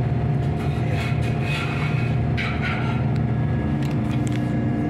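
Steady low rumble of running ship's machinery, with a constant hum, heard inside a steel tank, and a few brief higher noises partway through.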